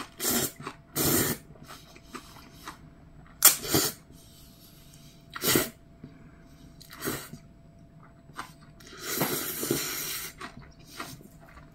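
A man slurping spicy bibim-guksu noodles: a run of short, loud slurps every second or two, then one long slurp of over a second near the end.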